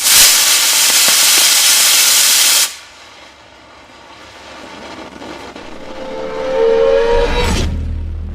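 A model rocket engine firing with a loud rushing hiss that cuts off abruptly after nearly three seconds. A quieter rushing sound then swells, with a whistling tone on top, and a low rumble comes in near the end.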